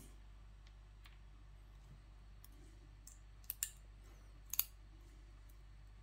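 A few faint, sharp metallic clicks of steel tweezers against an Assa oval lock cylinder and its small pins as the pins are picked out one by one, the loudest about three and a half and four and a half seconds in.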